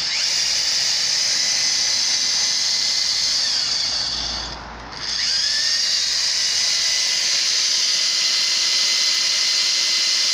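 Power drill boring into concrete with the hammer action switched off, so as not to chip the concrete. It runs steadily, stops for about half a second around four and a half seconds in, then starts again.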